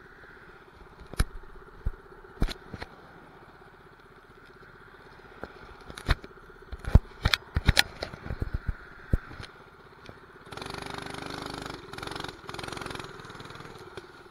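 Sharp knocks and clicks scattered through the first nine seconds. Then the mini bike's 212 cc single-cylinder engine, fitted with an exhaust pipe, runs louder in two bursts of about a second each near the end.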